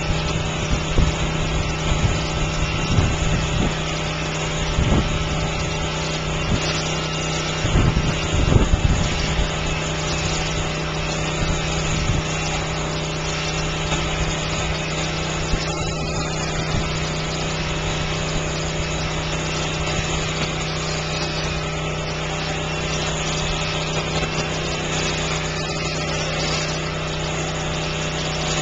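Electric sheep-shearing handpieces running, a steady mechanical hum and buzz, with irregular low thumps during the first third.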